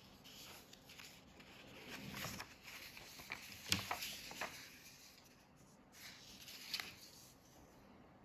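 Faint, irregular scratching of a thick felt-tip drawing pen stroking over lines on paper, with a sharper knock about halfway through.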